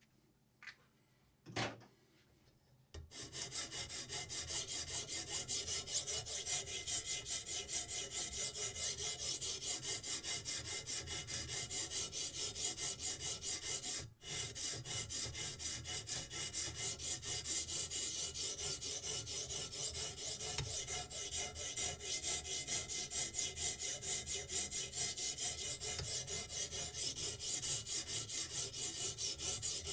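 Knife blade being sharpened on a diamond whetstone: rapid, even back-and-forth scraping strokes of steel on an abrasive stone. A couple of light clicks come before it starts about three seconds in, and it breaks off for a moment midway.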